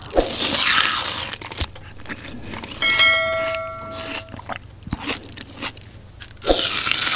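Noodles slurped loudly into the mouth, then chewing and small mouth clicks. About three seconds in, cutlery strikes the glass bowl and it rings clearly for about a second and a half; another long slurp near the end.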